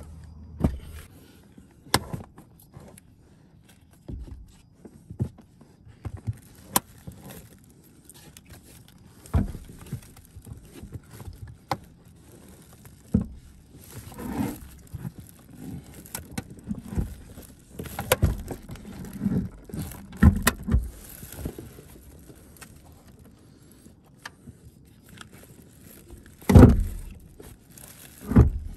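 A car battery being lowered into its compartment under the front passenger seat, its plastic case knocking and scraping against the compartment walls. There is a heavier thump near the end as it drops into place.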